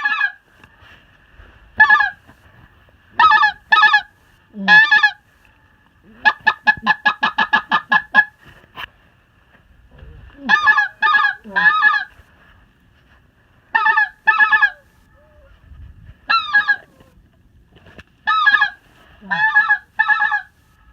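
Geese honking overhead in loud, short calls, mostly in ones, twos and threes. About a third of the way in comes a rapid run of a dozen or so quick honks.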